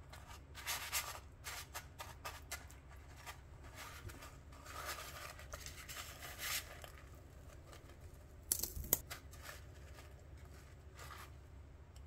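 Crushed Flamin' Hot chips crunching and rustling under a hand as an egg roll is pressed and rolled in them, in irregular crackles with a louder pair of crunches about eight and a half seconds in.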